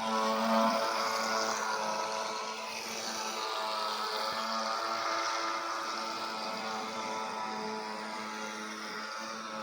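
Battery-powered remote-control speedboat's electric motor running with a steady whine that fades slightly as it goes.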